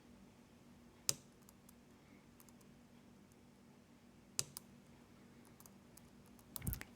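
Faint metal clicks of a dimple-lock pick working the pins of a Sargent Keso 12-pin lock. There is one sharp click about a second in, then another pair about four seconds in, over quiet room tone.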